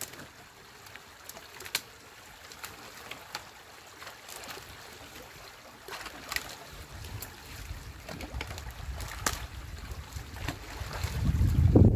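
Sticks of a beaver dam knocking and snapping as the dam is raked apart, in scattered sharp clicks over trickling water. A low rumble of wind on the microphone builds over the last few seconds.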